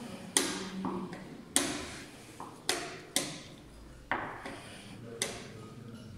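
Fast blitz chess moves: chess pieces set down on the board and the chess clock's buttons pressed in turn, a string of sharp knocks about once a second.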